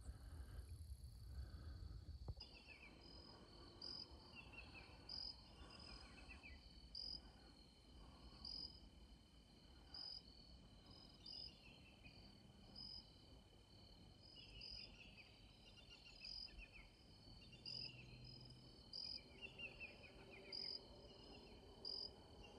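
Faint insect chorus: a steady high trill, with a short, higher chirp repeating about every second and a half and some fainter falling trills. A low rumble runs through the first two seconds.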